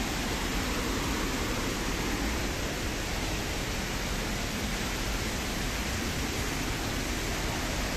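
Shallow forest stream running over rocks: a steady rushing of water.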